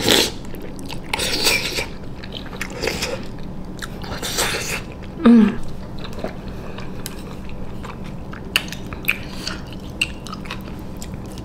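A person slurping and chewing brothy Samyang ramen noodles: a loud slurp right at the start and several more noisy slurps over the next few seconds, then a short loud mouth sound with a low hum about five seconds in. Chewing follows, with a few sharp clicks.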